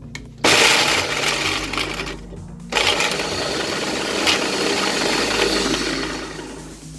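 Electric blender running with plastic drinking straws in its plastic jar: the motor starts abruptly, eases off, surges again, then winds down. The straws are whipped around and clatter against the jar and blade shaft.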